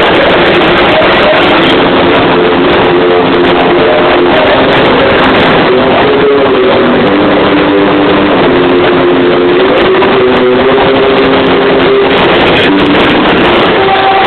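Live rock band playing loud, heavily distorted music, with held guitar notes stepping from one pitch to another over a dense, unbroken wash of sound.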